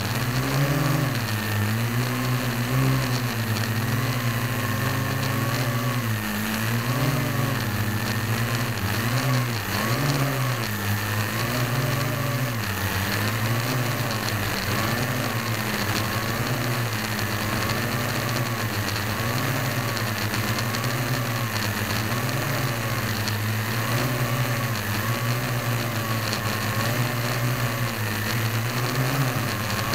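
Parrot AR.Drone 1.0 quadcopter's motors and propellers running in flight, heard from a camera mounted on the drone itself, the gear drives fitted with bearings in place of the stock bushings. A steady buzzing hum whose pitch wavers up and down about once a second as the motors adjust thrust.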